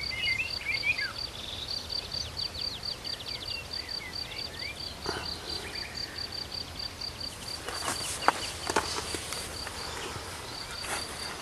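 A cricket chirping steadily in high, even pulses, about three or four a second, with a few short bird chirps in the first seconds. A handful of sharp clicks and rustles about eight seconds in.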